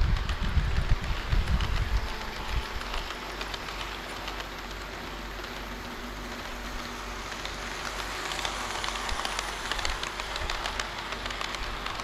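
HO-scale model train wheels rolling over sectional track: a low rumble with rail-joint clicks that fades about two seconds in as the train moves off, then a faint rattle of wheels on track that grows over the last few seconds as the next model train approaches.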